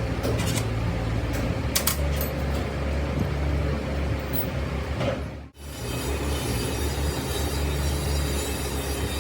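A heavy machine's engine running steadily with a low drone and a few light clicks, broken by a short cut about five and a half seconds in.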